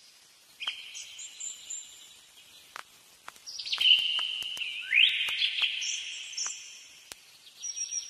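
Birds chirping: high-pitched running calls, one rising sweep about halfway through, with a few sharp clicks scattered among them.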